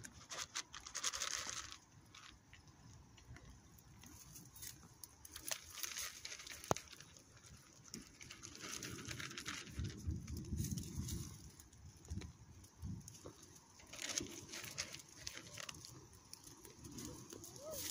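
Faint, irregular rustling and light crunching, with scattered soft clicks.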